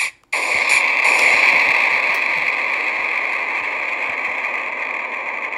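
Logo-intro sound effect of burning flames: a rushing, hissing noise with faint crackles. It starts suddenly just after the beginning, following a brief burst, and slowly fades.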